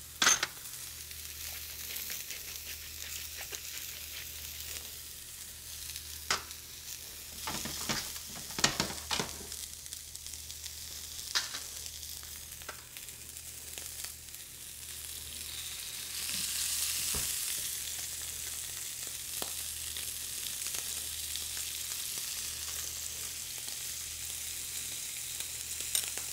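Beef tenderloin medallions searing in a hot stainless-steel skillet: a steady sizzle that grows louder about sixteen seconds in. A few sharp clicks and knocks come through, the loudest just after the start and a cluster about eight to nine seconds in.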